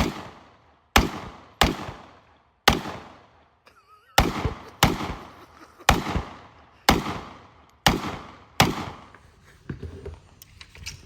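Gunshots: about ten single rifle shots fired one at a time at an uneven pace, each with a long echoing tail.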